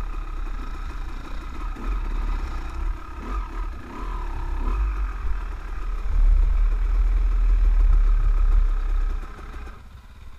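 Off-road motorcycle engine running at low trail speed, with a heavy low rumble on the microphone. It gets louder in the second half, then drops away sharply near the end as the bike slows.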